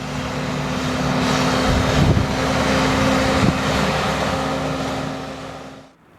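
A motor vehicle's engine running with a steady hum under a rushing noise that swells and then fades, cutting off suddenly near the end.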